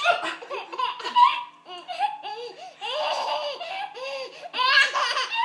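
Five-month-old baby laughing, a run of short high laughs about three a second with louder squeals at the start, around three seconds in and near the end.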